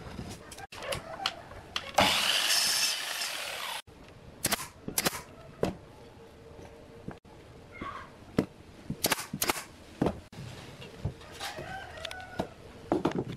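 Workshop handwork on wood: a loud, even burst of noise lasting about two seconds, then scattered sharp knocks and taps. Chickens cluck in the background.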